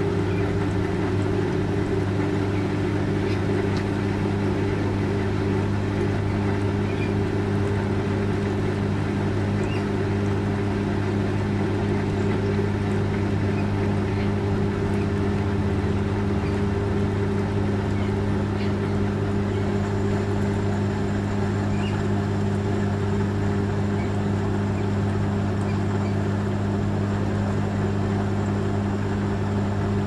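Fisher & Paykel Washsmart WA8560G1 top-load washing machine running mid-cycle, its motor giving a steady hum under the churning of the load in the tub.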